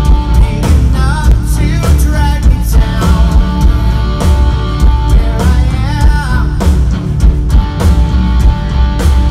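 Live rock band playing loud through a PA: electric guitars, bass and a steady drum beat, the kick drum very heavy in the low end from being close to the subwoofers. A male lead vocal sings in places.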